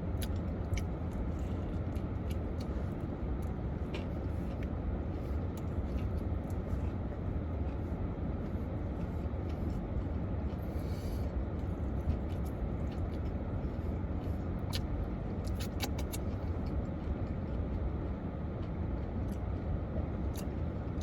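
A person quietly chewing a sandwich, with a few faint mouth clicks and smacks over a steady low rumble.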